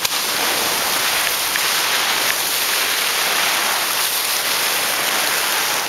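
A loud, steady hiss that starts suddenly and holds unchanged, with no clear pitch or rhythm.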